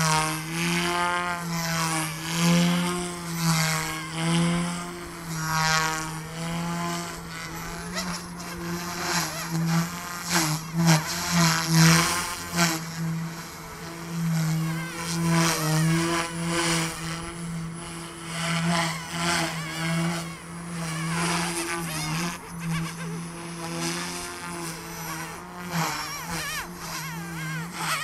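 OMPHobby M2 EVO micro electric RC helicopter in flight: a steady rotor buzz with a motor whine that rises and falls in pitch as it manoeuvres.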